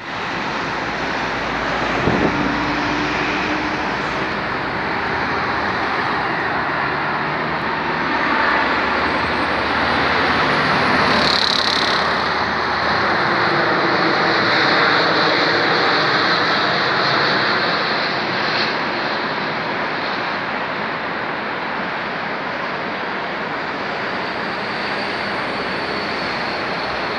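Airbus A330-300 airliner's twin jet engines at approach power as it passes low overhead on landing approach. It is a steady jet noise that swells in the middle, with a faint high whine bending in pitch, then slowly eases as the plane moves away.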